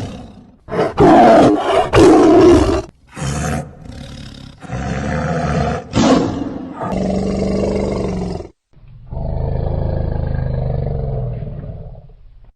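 Lion roaring: a string of loud, coarse calls, ending in one long, lower call lasting about three seconds.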